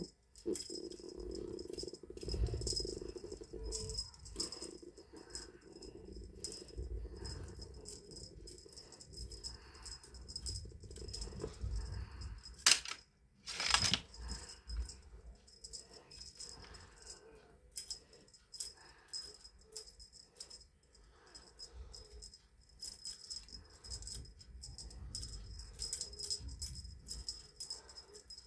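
A cat's rattle toy jingling and clicking in quick, irregular shakes as the cat bats and plays with it, with a louder knock about thirteen seconds in.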